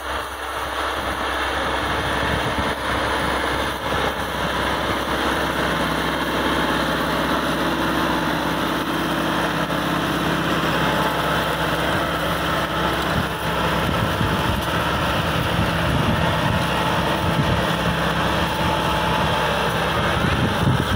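Massey Ferguson tractor's diesel engine running steadily under load while it pulls a disc harrow through dry soil.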